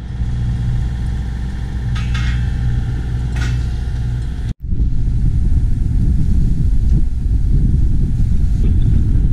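A sailing yacht's inboard engine running steadily with a low drone. After a cut about halfway through, the low rumble turns rougher and more uneven.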